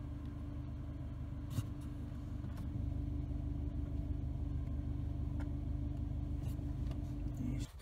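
An engine idling steadily, a low even hum that cuts off suddenly near the end.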